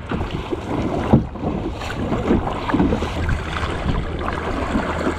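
Kayak paddling: water splashing and sloshing around the paddles and hull, with wind rumbling on the GoPro microphone. A single sharp knock about a second in.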